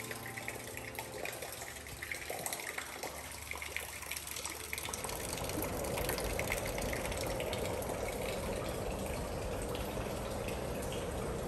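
Steady rush of running water, growing louder about five seconds in.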